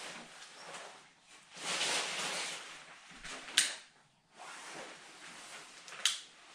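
Rustling as fire-starting material is handled at the open firebox of a wood stove, then two sharp strikes about two and a half seconds apart as a flame is lit for the stove's first fire.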